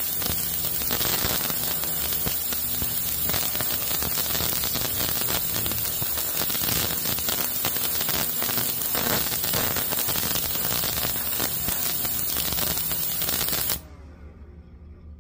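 Ultrasonic parts cleaner running: a steady loud hiss with a low electrical hum, which cuts off suddenly near the end as the cleaning cycle finishes and the parts are ready.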